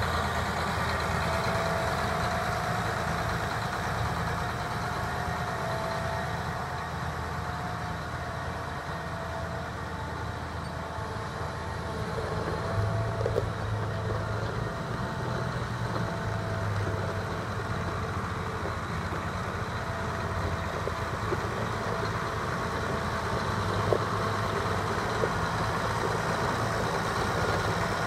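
John Deere 8310R tractor's 9.0 L six-cylinder diesel running steadily as the tractor drives slowly, slightly quieter in the middle, with a few sharp clicks in the second half.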